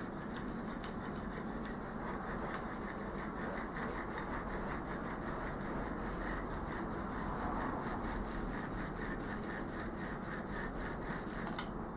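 A tool rubbing back and forth over a granite surface plate, smearing non-drying Prussian blue marking compound across it: a steady scrubbing sound made of many quick, small scratchy strokes.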